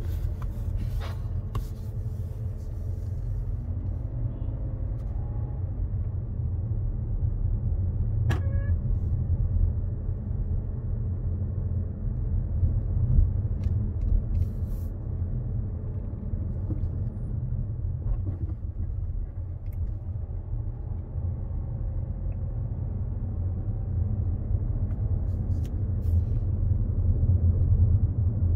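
Steady low rumble of a car being driven, heard from inside the cabin, growing a little louder near the end.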